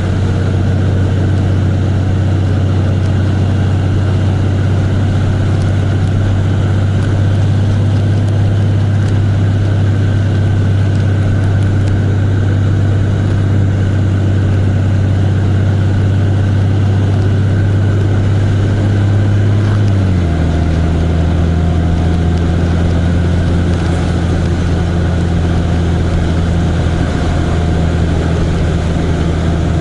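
A vehicle engine running steadily while driving, with a steady low hum; about two-thirds of the way through its pitch drops quickly to a lower steady note.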